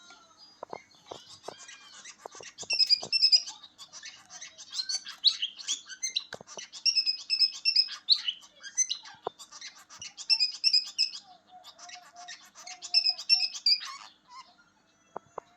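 Small birds chirping and twittering in busy, quickly repeated phrases, dying away about a second before the end.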